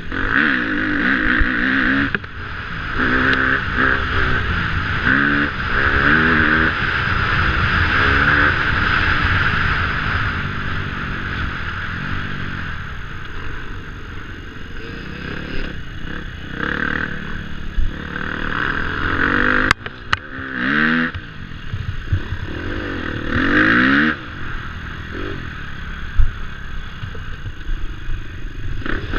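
KTM 250F dirt bike's four-stroke single-cylinder engine heard from the bike itself, its pitch rising and falling again and again as the rider opens the throttle and shifts through the mud. One sharp knock about two-thirds of the way in.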